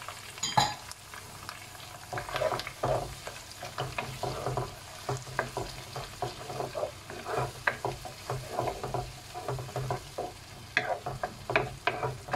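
Freshly added ground shallot, onion, ginger and garlic paste sizzling in hot oil as a wooden spatula stirs it, scraping the pan in repeated irregular strokes. This is the paste being sautéed until cooked. There is a sharp knock about half a second in.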